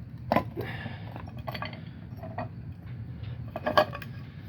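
Clamps being undone from a glued-up wood panel: light metallic clinks and rattles, with a louder knock about half a second in and another near the end.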